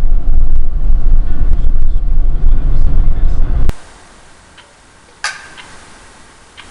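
Loud, deep rumble of city road traffic, which stops abruptly just under four seconds in, leaving quiet background with a sharp click about a second later.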